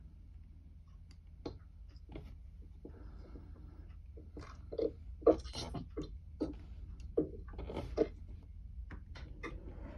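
Irregular small clicks and taps over a low steady hum, sparse at first and busier from about halfway through.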